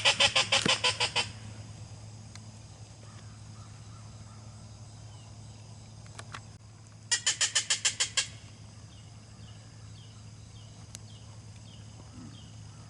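Canada geese honking in two short bursts of rapid, loud honks, about eight honks a second. The first burst comes at the very start and the second about seven seconds in.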